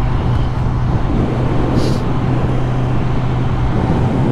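2019 Kawasaki Z900's inline-four engine running steadily while the motorcycle cruises at low speed, with wind noise rushing over the helmet-mounted microphone.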